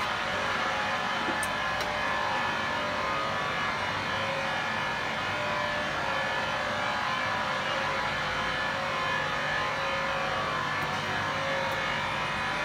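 Steady running noise of a vacuum emulsifier mixer, its agitator turning the batch inside the vessel, with a faint steady whine over an even mechanical rush.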